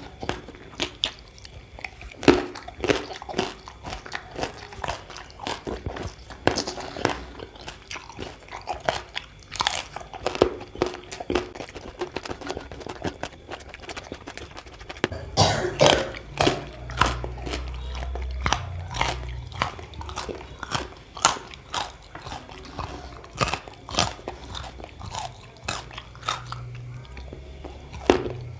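A person biting and chewing crunchy food close to the microphone: irregular crisp crunches and wet chewing, with a low rumble underneath in the second half.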